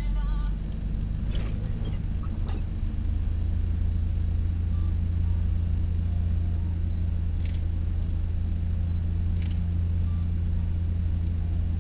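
Car driving on a snow-covered road, heard from inside the cabin: a steady low drone of engine and tyres, with a few faint clicks.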